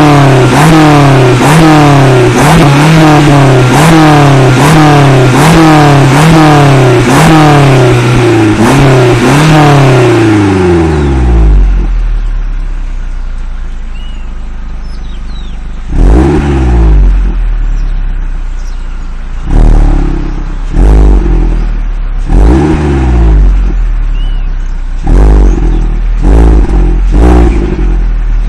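Peugeot 206 GTi four-cylinder petrol engine with a K&N replacement air filter in the stock airbox and a stock exhaust, revved in quick repeated throttle blips, about one a second, for roughly ten seconds. It drops to idle, then is blipped again in short separate bursts from idle. The recording is saturated.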